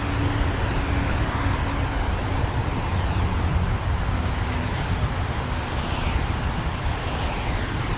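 Wind buffeting an action camera's microphone: a steady low rumble, with a faint hum underneath.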